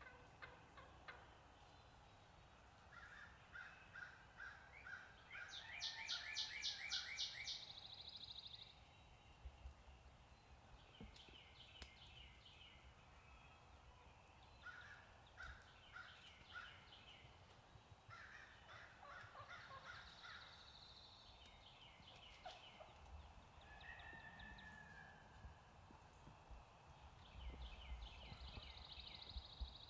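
Faint, repeated gobbling of a wild turkey gobbler, mixed with songbirds singing and trilling.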